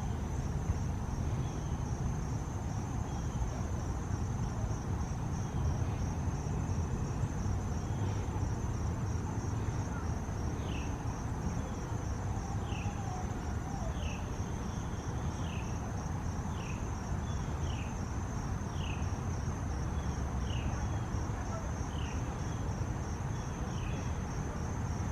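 Steady, pulsing chorus of crickets, with a short falling chirp from another animal repeated about once a second through the second half, over a low outdoor rumble.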